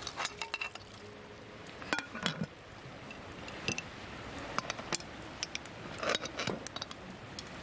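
Aluminium pressure cooker being closed: the lid fitted and the screw clamp turned down by hand, giving a string of short, sharp metallic clinks and taps at uneven intervals.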